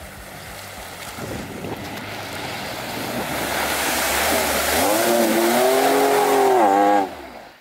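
Jeep Wrangler engine revving hard as its tyres spin through icy ford water and snow, with the hiss of spray building steadily. The engine note climbs and wavers over the last couple of seconds, then the sound cuts off suddenly.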